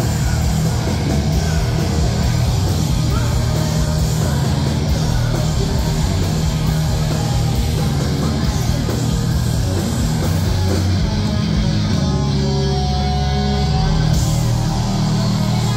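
Live punk rock band playing loud distorted electric guitar, bass and drums. About eleven seconds in the high end drops away and held guitar and bass chords ring on for about three seconds, then the full band comes back in.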